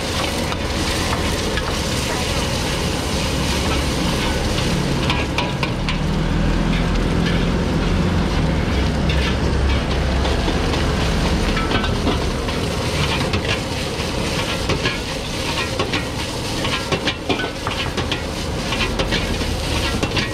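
Egg fried rice sizzling in a carbon-steel wok over a gas wok burner with a steady low rumble. A metal ladle scrapes and knocks against the wok, the strikes coming thicker in the second half.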